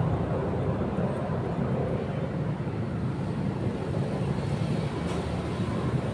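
Motorcycle engine running steadily at road speed, a low hum with road and traffic noise over it.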